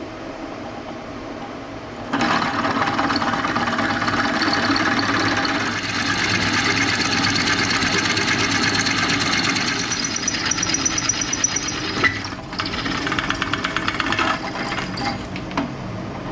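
Drill press running with its twist drill cutting a bolt hole through a cast iron bandsaw table support casting. The motor hums alone at first; about two seconds in, the bit bites and a loud, gritty cutting noise sets in. It breaks off briefly near the end, starts again, then eases back to the motor hum.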